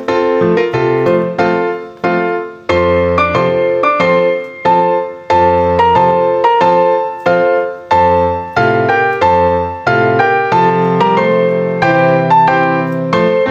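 Background piano music: a repeating pattern of struck notes and chords over low bass notes.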